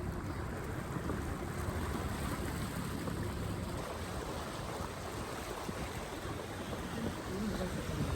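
Floodwater rushing through a street after heavy rain: a steady, even rushing wash, heavy in the low end.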